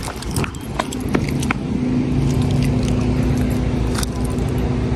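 Clicks and rattles in the first second and a half, over a steady low mechanical hum that carries on through the rest.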